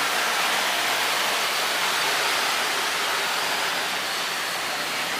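Boeing 737 Next Generation's CFM56 jet engines at high thrust as it climbs away after lift-off: a steady rushing roar that eases slightly near the end.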